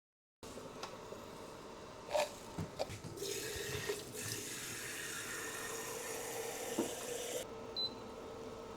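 Kitchen tap running into a sink for about four seconds and then shut off, with a few knocks and clatters of things being handled around it, over a steady low hum.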